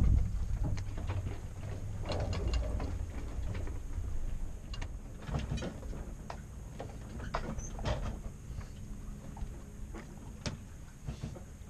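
Sailboat under way downwind in a swell: a steady low rumble of wind and water, with scattered irregular knocks and clicks from the boat's gear.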